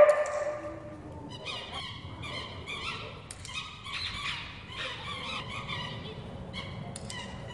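Excited dog giving a run of short, high-pitched yips and whines.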